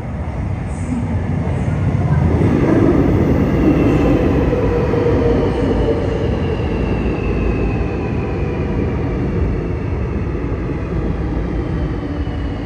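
Seoul Subway Line 7 electric train pulling into the station: wheels rumbling on the rails, getting louder about two seconds in, with the traction motors' whine slowly falling in pitch as it brakes.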